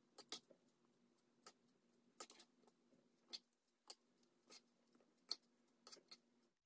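Faint, irregular clicks and taps of a serving utensil against a cooking pot and a ceramic plate as tomato sauce is spooned out, about a dozen over a few seconds, over a faint steady hum.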